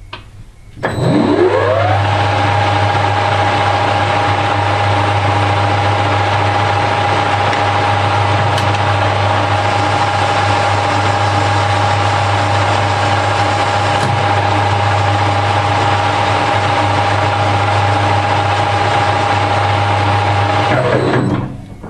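Harrison L5 lathe spinning up about a second in, its pitch rising quickly, then running at a steady whine over a low hum while the bar stock's end is turned down, before spinning down near the end.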